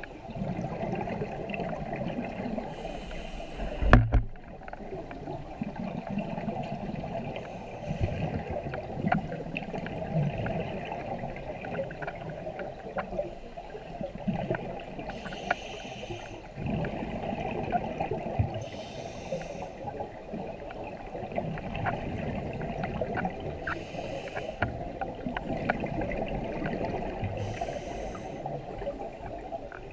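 Scuba regulator breathing heard underwater: exhaled bubbles hiss and gurgle in short bursts about every four to five seconds over a steady muffled water rumble. A single sharp knock about four seconds in.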